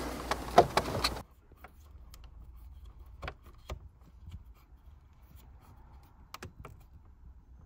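A few sharp, light clicks and taps of a screwdriver working the single Torx screw that holds a plastic dashboard air vent. There are two close together about three seconds in and two more a little past six seconds.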